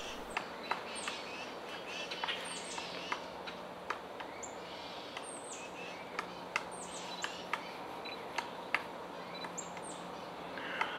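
Pileated woodpecker pecking at wood: irregular sharp taps, about one or two a second. Short, high, thin bird calls that slide downward come in between the taps.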